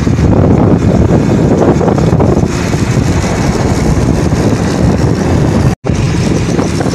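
Small 70cc single-cylinder motorcycle running along at riding speed, with wind buffeting the microphone. The sound drops out for a split second near the end, then carries on.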